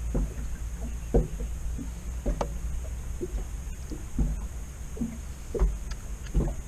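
Scattered light knocks and taps of gear being handled in an inflatable PVC fishing boat, at irregular intervals, over a steady low rumble.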